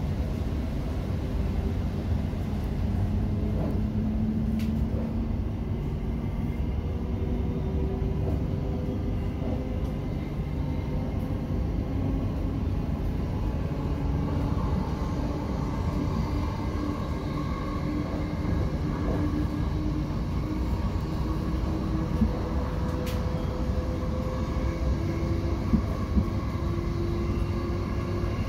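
Interior of a Class 707 Siemens Desiro City electric multiple unit under way: a steady rumble of wheels on the rails. Over it runs a faint electric traction motor whine that climbs slowly in pitch through the second half as the train picks up speed. A couple of short knocks come near the end.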